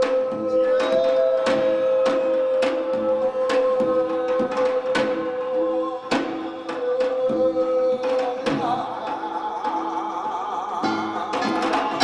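Korean bi-nari blessing chant with samul nori percussion: a long steady held note runs for about six seconds, breaks, returns, then turns to a higher, wavering note, over sharp, regularly spaced drum and gong strikes.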